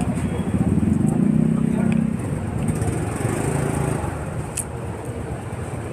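Street traffic: a motor vehicle engine running close by, loudest about a second or two in and then easing off, over steady traffic noise.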